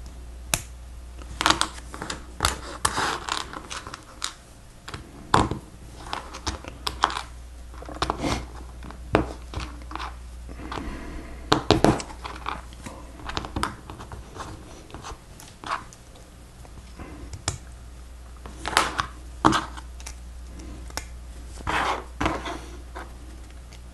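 Plastic Lego Technic pieces clicking and rattling as they are handled and snapped together, in irregular sharp clicks.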